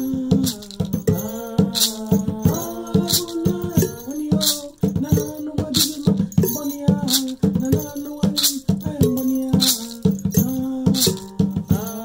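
Voices singing a devotional song over a hand drum and a shaken rattle keeping a steady rhythm.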